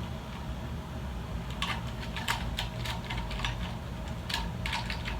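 Irregular sharp plastic clicks and taps, several a second, from ring light and stand parts being handled and fitted together. They start about a second and a half in, over a steady low hum.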